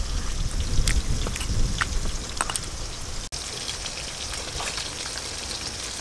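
Onion being ground on a stone slab with a stone roller: a low grinding rumble with scattered clicks. After a cut a little past halfway, chitol fish pieces frying in mustard oil in a wok: a steady crackling sizzle.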